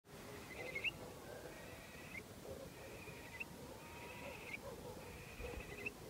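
Birds known locally as al-yal calling at night: five repeated trilled calls, each ending in a short upward flick, with fainter lower calls beneath.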